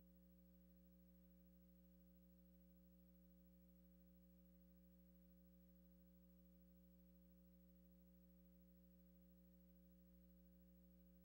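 Near silence with a faint steady low hum of a few constant tones.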